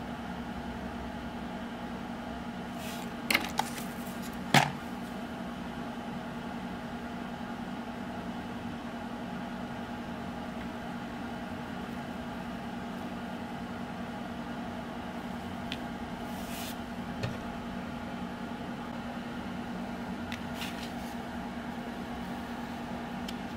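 Steady low hum of a running fan or appliance, with a few sharp clicks about three to five seconds in and fainter ticks later, from handling a plastic tackle box and small lead split-shot sinkers.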